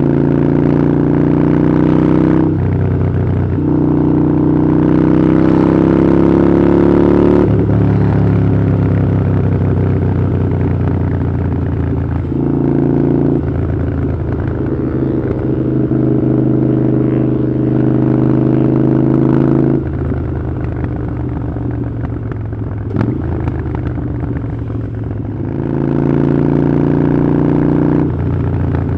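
Harley-Davidson Iron 883's air-cooled V-twin engine running through a Vance & Hines exhaust while riding, its pitch climbing and then dropping sharply several times as gears change.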